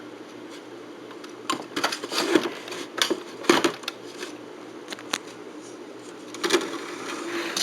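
Scattered clicks and knocks of hard plastic electronic equipment being handled and set down, a few irregular taps a second apart, over a faint steady hum.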